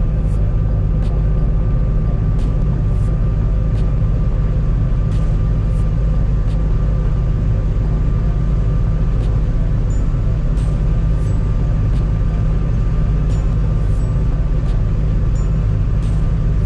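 A large vehicle engine running steadily: a constant deep drone with a faint steady whine above it and occasional light clicks.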